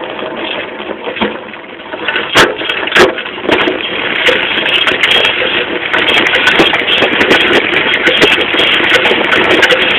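Moped being ridden over rough ground, heard from low by the rear wheel: a steady rush of road and wind noise with rattling and clattering from the frame, chain and rear suspension. Two sharp knocks come about two and a half and three seconds in, and a busy clatter of ticks fills the second half.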